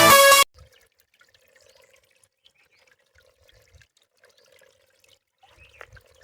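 Loud electronic background music with a heavy beat cuts off abruptly about half a second in. Near silence follows, with only faint scattered drips and small splashes of water.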